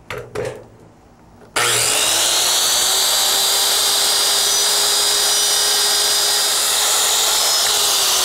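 Circular saw switched on about one and a half seconds in: the motor spins up at once, then runs steadily with a whine as the blade cuts into a 4x4 wooden post. Its pitch begins to fall at the very end as the motor winds down. A brief knock or two of handling the saw come before it starts.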